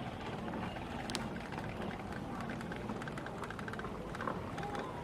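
Outdoor ambience: a steady low rumble with scattered faint clicks and faint distant voices.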